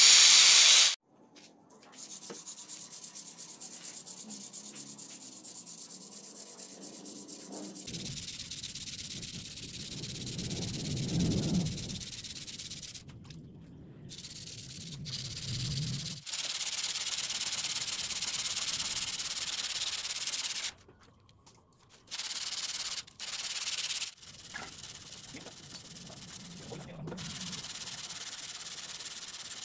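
A hand file rasping over a leaf-spring steel knife blade in repeated passes, with abrupt breaks between passes. In the first second an angle grinder with a sanding pad is still running on the blade, then cuts off.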